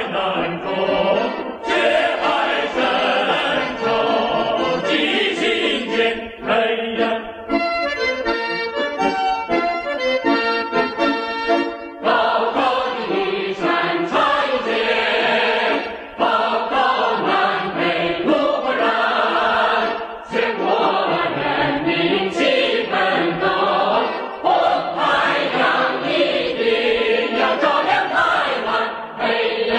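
A Mandarin-language Chinese revolutionary song sung by a choir with instrumental accompaniment. There is a short instrumental passage of steady held notes partway through.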